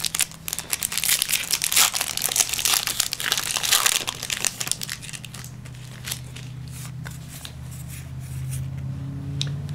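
Foil booster-pack wrapper of a Yu-Gi-Oh pack crinkling and tearing open, loudest in the first four seconds. Then lighter, scattered clicks and slides of the trading cards being flipped through.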